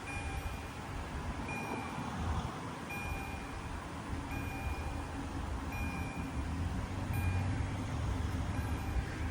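Level-crossing electronic warning signals (EHL-S10) sounding a short high ding about every second and a half, over a low rumble that grows louder in the second half.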